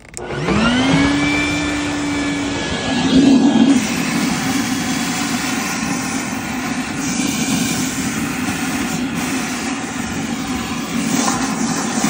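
Stinger wet/dry shop vacuum switched on: its motor whine rises in pitch over about a second and settles into a steady run. About three seconds in the sound turns briefly louder and rougher as the hose draws in water and air, then runs on steadily.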